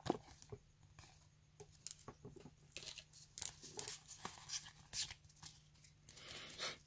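Pokémon trading cards being handled and shuffled through by hand: scattered light clicks and short scrapes of card stock sliding against card stock.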